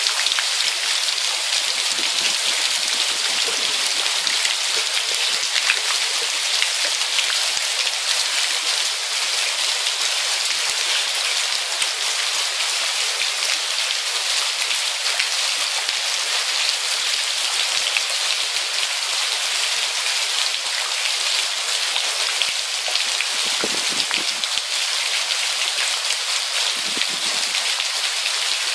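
Heavy rain pouring onto flooded pavement and trees, a steady dense hiss of drops hitting standing water.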